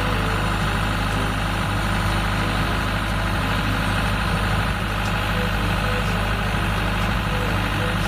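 Engine of a Tadano aerial-platform bucket truck running steadily at idle while its hydraulic boom holds and lifts the bucket.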